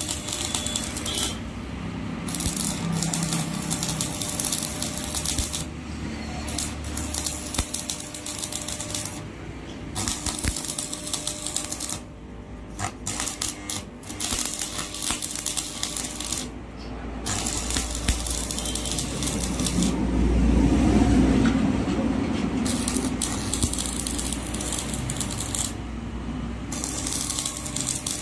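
Stick welding: the electrode arc crackling and sizzling as it welds the joints of a steel bar window grill, in several runs broken by short pauses between welds. A low hum swells about two-thirds of the way in.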